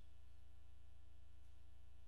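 Steady low electrical hum with nothing else over it.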